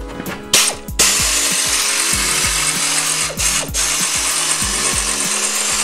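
A power tool running in a long steady run, cut briefly about three seconds in, over background music with a steady beat.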